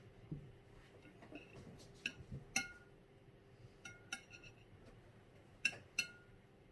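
Metal fork or utensil clinking against a plate, six light ringing clinks in three pairs, with a couple of duller knocks, as the eggs are cut and scooped up.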